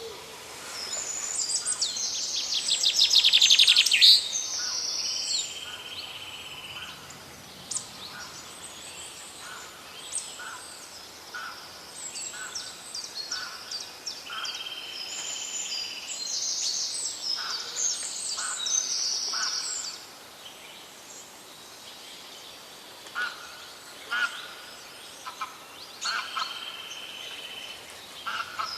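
Songbirds singing, several phrases overlapping: high whistled notes and trills, with a fast, quickening trill about 2 to 4 s in as the loudest part, and a held steady whistle repeated now and then.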